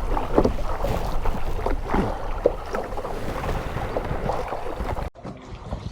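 Kayak paddling: paddle blades dipping and splashing in the water, with uneven small splashes. The sound drops suddenly to a quieter take about five seconds in.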